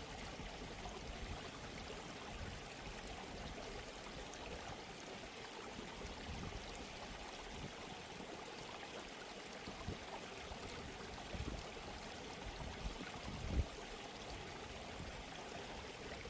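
Steady rush of flowing water, like a stream, with a couple of brief low bumps near the end.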